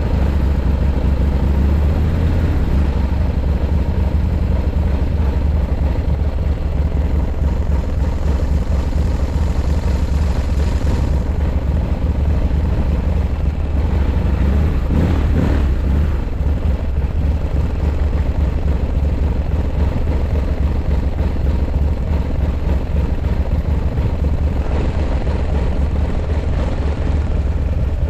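Buell X1 Lightning's air-cooled 1203 cc V-twin idling steadily. It is running evenly with no abnormal noises.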